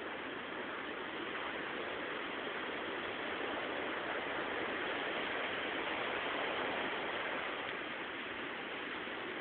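Sea waves washing onto the shore, a steady rushing surf that swells gently for a few seconds and eases off again.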